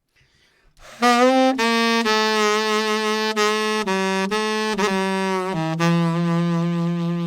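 Saxophone playing a slow, expressive ballad phrase of several notes, shaped with bends, short grace notes and vibrato, starting about a second in and ending on a long low note that is tapering off in a decrescendo.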